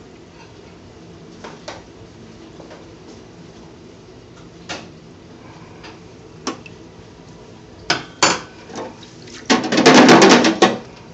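Metal clattering of a deep fryer's wire basket and a slotted metal turner: a few scattered clicks, then about a second of loud, rapid clanking near the end.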